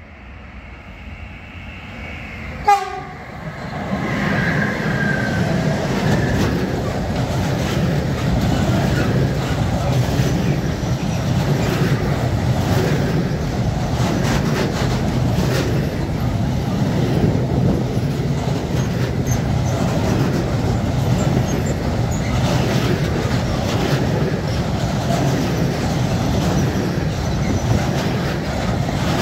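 A freight train hauled by an electric locomotive approaches, and the locomotive gives one very short horn blast about three seconds in. From about four seconds on, a long rake of covered freight wagons runs past close by with a steady rumble and clatter of wheels on the rails.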